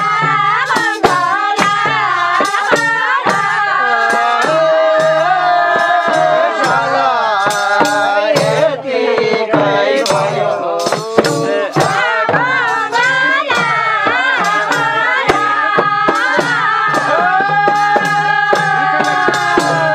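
Women singing a traditional Nepali Chutke Bhaka folk song together in gliding, held melodic lines, over a steady percussive beat.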